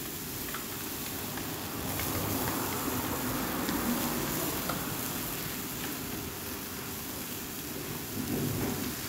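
Beef and a tamarind and palm-sugar sauce sizzling steadily in a wok over a gas flame, a little louder for a few seconds near the start.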